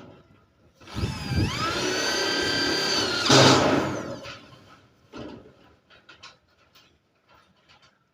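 Electric drill spinning up to speed, running steadily for about two seconds, then a loud noisy burst as it finishes and winds down. A few faint taps follow.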